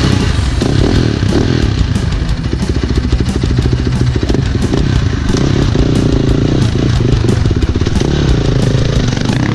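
Apollo RFZ dirt bike engine running close to the microphone while the bike stands still, its engine speed rising and falling.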